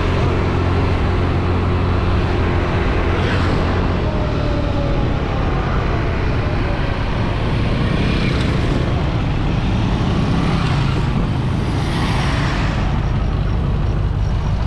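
Carburetted motor scooter engine running steadily while riding, under heavy wind and road noise, swelling louder a few times as other vehicles pass.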